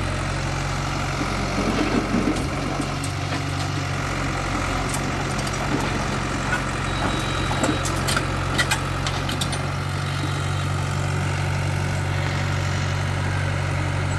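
Caterpillar mini excavator's diesel engine running steadily. Partway through comes a short run of sharp clattering knocks as the bucket tips broken road rubble into a dump truck's steel bed.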